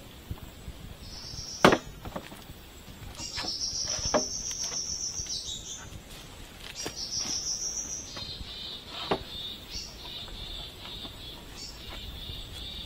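Forest insects buzzing in long, high, steady trills, one lasting from about one second to eight seconds in and a lower one carrying on after it. A few sharp knocks cut in, the loudest close to two seconds in.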